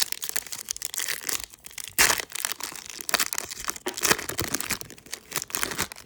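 A Panini Mosaic trading-card pack wrapper being torn open and crinkled: a dense run of crackling rips, with the loudest tears about two seconds in and again around four seconds.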